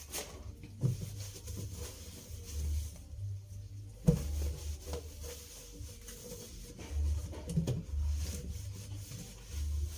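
Kitchen items being handled and set down: scattered light knocks and rubbing, with a sharper knock about four seconds in.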